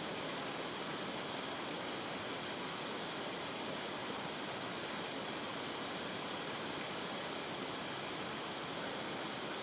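A steady, even rushing noise with no distinct strikes, calls or other events.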